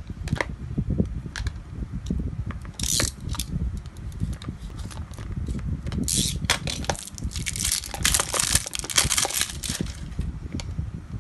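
Plastic Majorette tyre-shaped toy-car case crinkling and clicking as it is handled and turned over in the hand, in several bursts of crackling, the longest in the second half.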